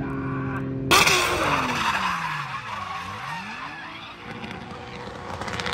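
Drift car sliding with its tyres screeching. It starts abruptly and loudly about a second in. Through the screech the engine note falls and then climbs again.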